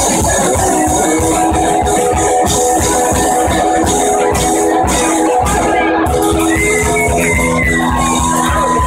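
Live rock band playing loud: electric guitar over a steady, driving drum-kit beat.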